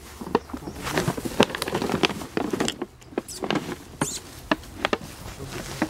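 Dry leaf litter and brittle stems crackling and rustling under feet and hands scrambling through scrub: an irregular run of sharp snaps and crackles.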